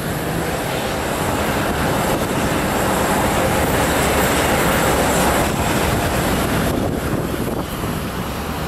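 Steady rushing noise of jet aircraft on an airport apron, with a faint high whine over it.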